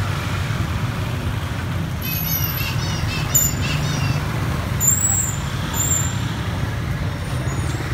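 Busy street traffic of motorbikes and scooters going at low speed, a steady low engine rumble. About two seconds in there is a quick run of short high chirps, and a few brief high-pitched squeals come over the traffic after that.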